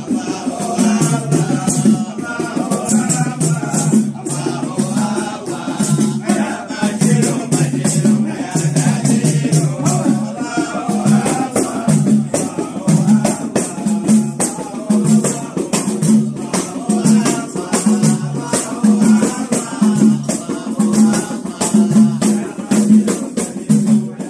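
A group of men chanting a song together over a steady frame-drum beat, with sharp rattling accents.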